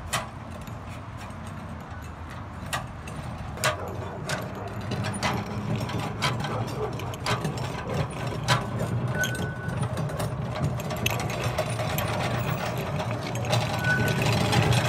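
Crafco Rubber Melter 10 hot-rubber crack-sealing pot rolling over asphalt as it lays sealant: irregular clicks and rattles over a steady low rumble, growing a little louder near the end.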